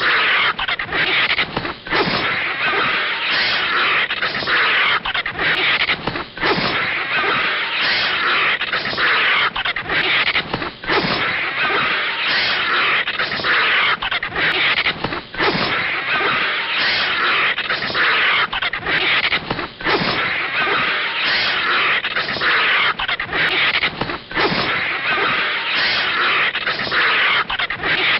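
Anime animal sound effects for a snake facing a vulture: a continuous hiss with a quick, regular pulse. The same stretch of a few seconds repeats about every four and a half seconds.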